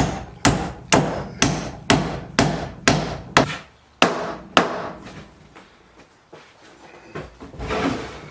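A hammer driving a nail into timber, about ten steady blows at roughly two a second, then it stops and only a few lighter knocks follow.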